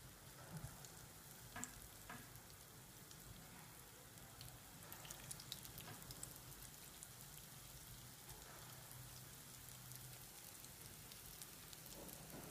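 Urad dal vadas deep-frying in hot oil in a steel kadai: a faint, steady sizzle with fine crackling, and a few louder pops about one and two seconds in.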